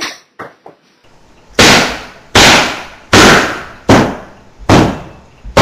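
Six loud bangs at a steady pace, about one every three-quarters of a second, each trailing off briefly, starting about a second and a half in.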